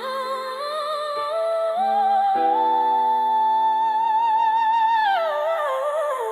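R&B ballad music: a wordless vocal line with vibrato climbs, holds one long high note for about three seconds, then falls away, over sustained backing chords.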